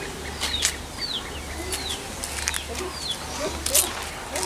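A bird calling a string of short, high chirps that slide downward, repeated roughly every half second to a second, with scattered sharp clicks and knocks; the loudest click comes near the end.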